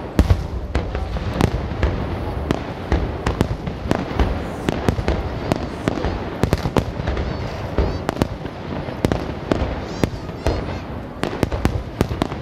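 Aerial firework shells bursting in a dense barrage: many sharp bangs a second, one after another, over a continuous low rumble.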